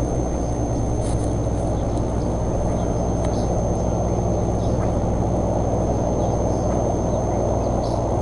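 Steady background noise from an outdoor nest-camera microphone: a constant low rumble with an electrical hum and a thin high whine, with a few faint brief ticks or rustles.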